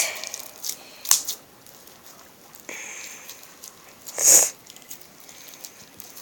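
Homemade glue-and-detergent slime being kneaded and squeezed in the hand, giving scattered sticky clicks and squelches, with a sharp click about a second in and a louder short hissing burst about four seconds in.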